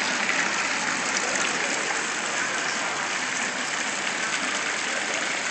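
Outdoor fountain's water jets splashing steadily into its pool, a continuous even rush of water.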